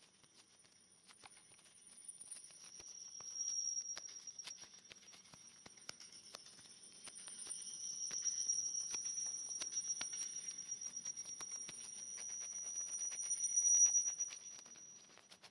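Audio feedback between a microphone, a computer and a camcorder: a high-pitched steady tone with a fainter, higher one above it. It swells a few seconds in, fades, then builds again longer and louder before cutting off near the end, over scattered clicks and crackles.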